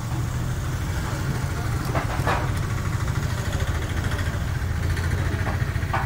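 Steady low hum of an idling engine, with a few short sharp sounds about two seconds in and again near the end.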